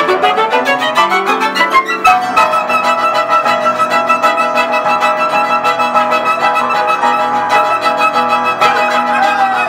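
Violin, upright piano and saxophone playing together. The first two seconds are a fast rising run. From about two seconds in, the instruments hold a long chord over rapid repeated piano notes, and sliding notes come in near the end.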